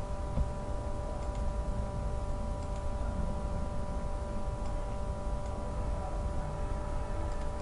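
Steady background hum with several fixed tones over a low rumble, with a few faint computer-mouse clicks.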